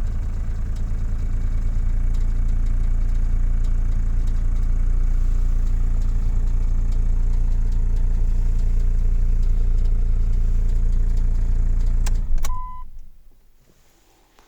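Chrysler Voyager 2.8 CRD four-cylinder diesel idling steadily with light ticking on a cold start after standing for a couple of months. About twelve seconds in come two clicks and a short beep, and the engine runs down to quiet.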